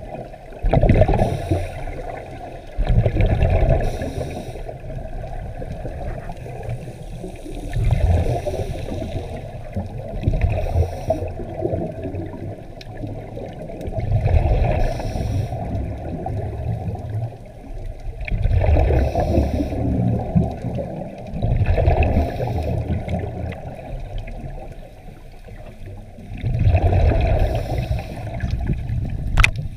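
Scuba divers' exhaled breath bubbling out of their regulators, heard underwater: about eight low, gurgling bursts of bubbles, one every three to five seconds, over a steady water background.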